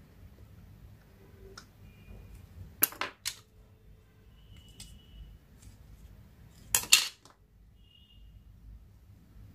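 Small hard clicks and taps from handling the opened plastic utility lighter, its casing half and metal tweezers: two sharp clicks about three seconds in and a louder double click near seven seconds.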